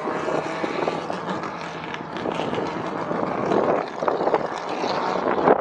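Racing engines running at speed, a dense, steady mechanical drone with no break.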